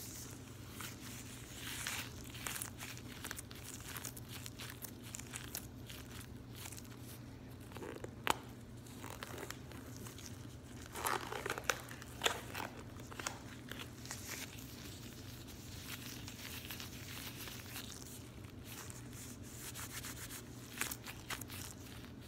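Latex gloves rubbed, squeezed and clenched together on the hands: continuous rustling and crinkling with scattered sharp clicks, the loudest a single click about eight seconds in and a cluster of them around eleven to twelve seconds.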